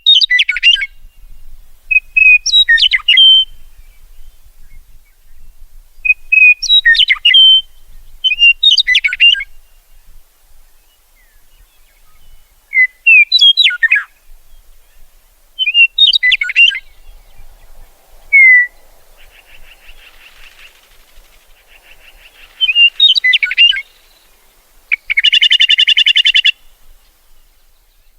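Meadowlark singing: short phrases of quick, slurred whistled notes, repeated every few seconds. Near the end comes a harsh, buzzy rattling chatter call.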